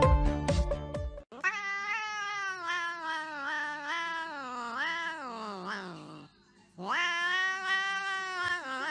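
A tabby cat yowling in long, drawn-out wails, after about a second of music. The first wail wavers for about five seconds and slides down in pitch at its end; after a brief pause a second wail starts about seven seconds in.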